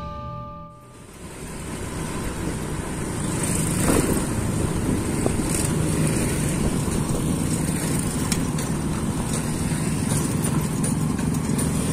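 Road traffic dominated by small motorcycle engines running and passing, a steady mix of engine hum and road noise. The last of a music sting fades out in the first second.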